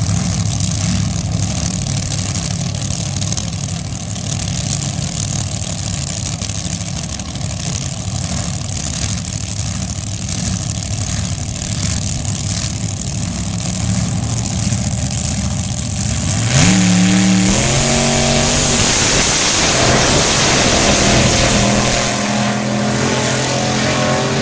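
Dragster engines idling steadily at the starting line, then about two-thirds of the way in they launch at full throttle, the engine note rising in several steps and then fading as the cars run away down the strip.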